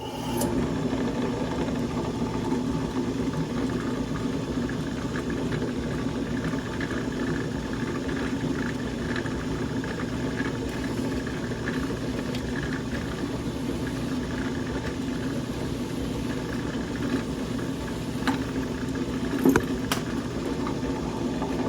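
Drill press motor spinning up and running steadily at about 2380 RPM while a bit cuts through an aluminum plate lubricated with cutting fluid. A few sharp clicks come near the end.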